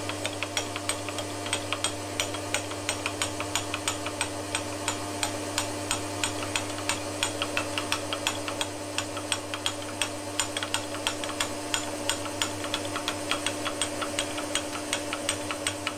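Milling machine taking a facing cut across aluminium with an indexable cutter: a steady motor hum under a fast, uneven run of sharp ticks from the cutter in the cut, several a second. The table is being cranked by hand rather than on power feed.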